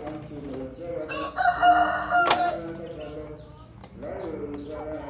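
A rooster crowing once, a single held call of about a second near the middle, with a sharp click near its end. Lower, wavering bird calls go on underneath.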